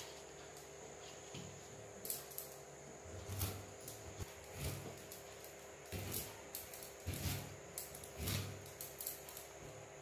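Peeled elephant foot yam being cut by hand against an upright cutting blade: short, irregular slicing strokes about a second apart.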